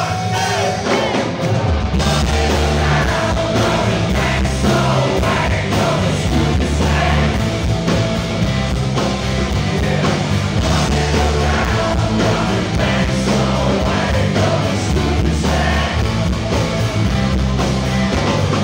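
Live rock band playing, with electric guitars, bass guitar, drums and vocals heard from the audience. The full band with heavy bass comes in about two seconds in and carries on steadily.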